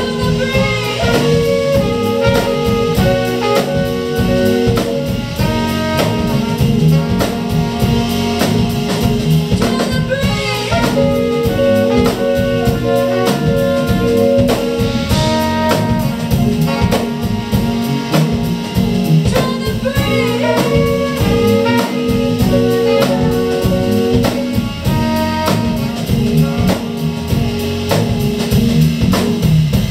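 Live jazzy band playing: saxophone and trumpet hold long notes over a drum kit and guitar. The held horn phrases come back roughly every ten seconds.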